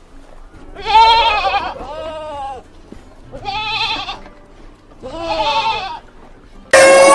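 Goat bleating four times, each call about a second long with a wavering, arching pitch. Near the end a rooster starts crowing loudly.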